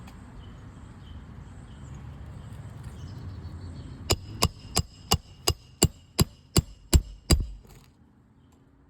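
Roofing hammer driving a nail into a 3-tab asphalt shingle: about eleven quick, sharp blows with a light metallic ring, starting about four seconds in and getting louder toward the end.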